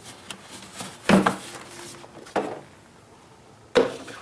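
Plastic engine cover of a Jeep Wrangler JK's 3.6 engine being pulled off its mounting pins: three sharp pops, roughly a second and a half apart.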